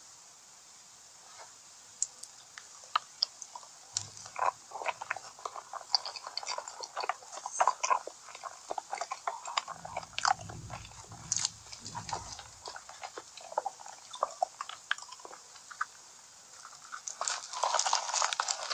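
Close-miked eating: chewing and biting with a dense run of small wet clicks and crunches.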